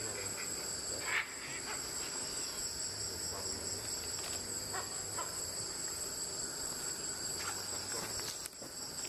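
Steady high-pitched drone of an insect chorus, with a few short, faint sounds scattered through, the clearest about a second in.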